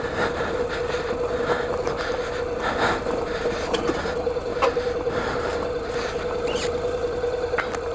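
Motorcycle engine running at a low, steady pitch as the bike rolls over a rocky, leaf-strewn dirt trail. Tyres crunch and stones knock and scrape underneath at irregular moments.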